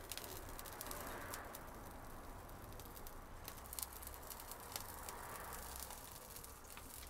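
Wood fire crackling faintly: scattered sharp pops and ticks over a soft, steady hiss.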